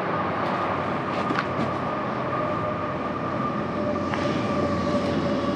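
Steady machine hum with a constant high whine, running unchanged, with a few faint clicks of handling over it.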